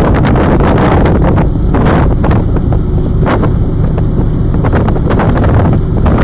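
Wind buffeting the microphone in gusts, easing somewhat in the middle, over the low rumble of the icebreaker Aurora pushing through drift ice.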